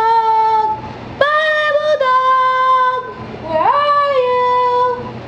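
A high solo voice singing a few long, held notes. It slides up into the last note about three and a half seconds in.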